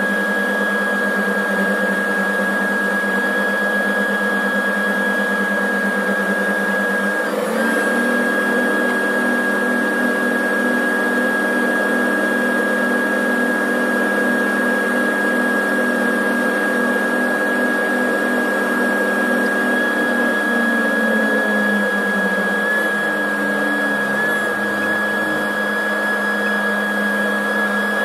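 Self-propelled crop sprayer running down the road, heard from inside its cab: a steady engine drone with a constant high whine over it. The engine picks up about seven seconds in, then eases off and drops in pitch near the end as the machine slows.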